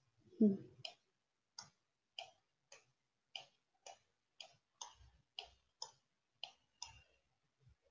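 Computer mouse clicking, about two sharp clicks a second at an uneven pace, while the digital whiteboard is scrolled up. A short low voice sound comes about half a second in.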